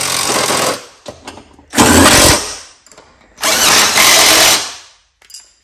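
Cordless drill with a socket driving bolts into a mower deck: three short runs, the first stopping under a second in, then a half-second run and a run of about a second.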